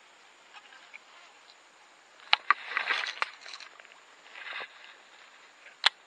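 A few sharp clicks and short rustling, scraping noises from a baitcasting rod and reel being handled: three loud clicks come in the middle, with rustling between them, and another loud click near the end.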